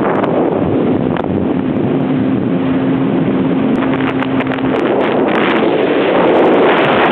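Jet ski engine running under way, with heavy wind buffeting on the microphone. A steady engine tone holds through the middle, and a louder rush of wind and water noise swells near the end.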